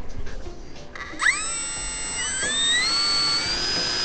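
Electric motor and propeller of a small foam RC Hawker Hurricane spooling up about a second in: a whine that rises in pitch for a couple of seconds, then holds steady at launch power, just before a hand launch.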